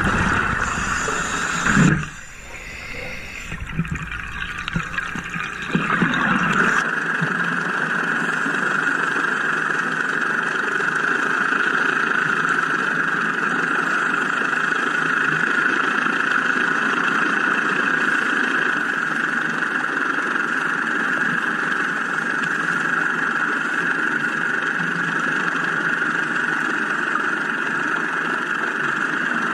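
Steady engine drone heard underwater, settling in about seven seconds in after an uneven start.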